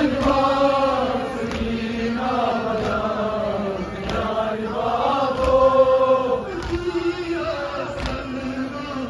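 Men's voices chanting a Kashmiri noha, a Muharram mourning lament, in long drawn-out notes that rise and fall slowly. A few sharp knocks cut through the chant now and then.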